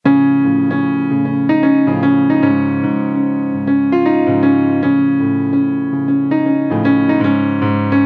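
Background music: a keyboard melody over sustained lower notes.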